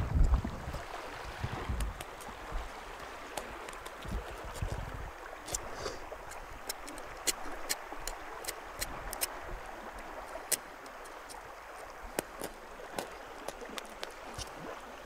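Outdoor background noise: a steady hiss, with wind buffeting the microphone in the first second and in weaker gusts up to about five seconds in, and scattered sharp clicks throughout.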